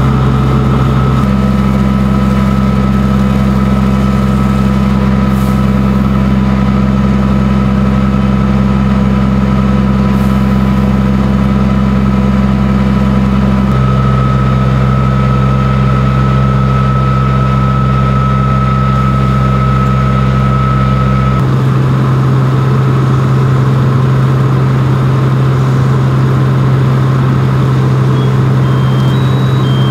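Large diesel engine of a fire truck running steadily at a fast idle to drive its water pump while a hose line is in use; a loud, even drone with a steady low hum. Its tone changes abruptly three times.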